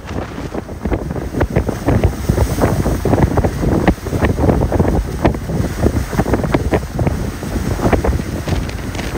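Strong wind buffeting the microphone on a ship's open deck at sea: a loud, gusty rumble with rapid irregular buffets.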